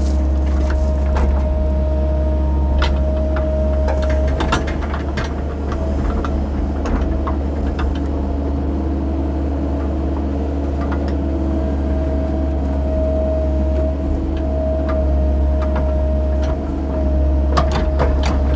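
CAT 308 mini excavator's diesel engine running steadily under digging load, with a steady whine over it and scattered clunks and knocks from the bucket and rock in the trench.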